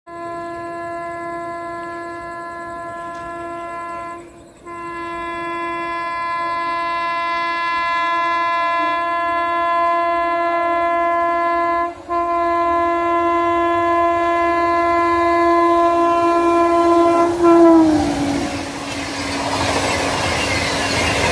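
WAP7 electric locomotive's horn sounding long, steady blasts, broken twice briefly, as the Rajdhani Express approaches at speed. Its pitch drops as the locomotive passes, then the rush and wheel clatter of the passing coaches take over.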